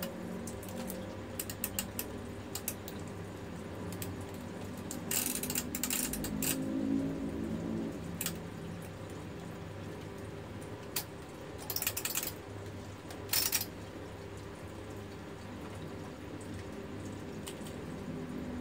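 Mechanism of a Brother GX-6750 electronic typewriter clicking while its ribbon and correction-tape parts are worked: scattered sharp clicks and three short clattering runs of clicks, over a steady low hum.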